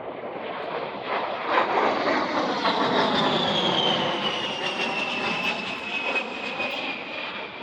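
An A-10 Thunderbolt II's twin TF34 turbofan engines on a low pass. The jet rush swells to its loudest a couple of seconds in, then fades, with a high whine that falls steadily in pitch as the aircraft goes by.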